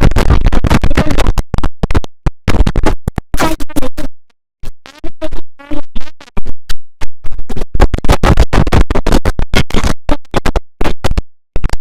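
Heavily edited, stuttering audio effect: short slices of sound cut and repeated in rapid succession, like record scratching. There are brief dropouts, the longest about four seconds in.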